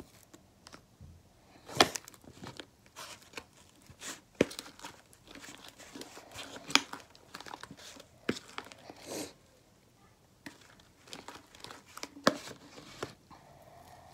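Sticky homemade fluffy slime being kneaded and pulled apart by hand, giving irregular crackles, snaps and tearing sounds. The slime is still really sticky, short of contact solution.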